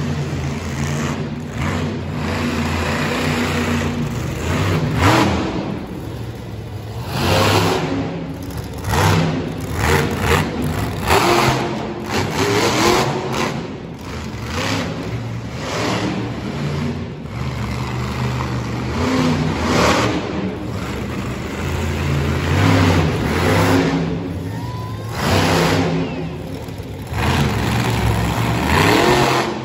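Tiger Shark monster truck's engine revving hard in repeated surges, throttle blipped up and dropped back every second or two, loud and echoing in an indoor arena.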